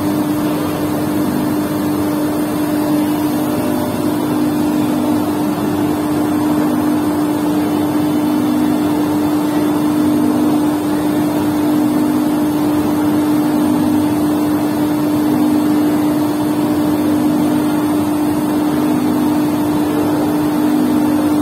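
Markem-Imaje 9040 continuous inkjet printer running, its ink pump giving a loud, steady hum with a faint pulse roughly every two seconds.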